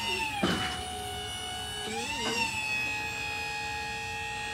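Steady, high mechanical whine from a car-carrier truck, made of several tones together. The pitch drops a little about half a second in, where there is also a short rush of noise, and it wavers briefly about two seconds in.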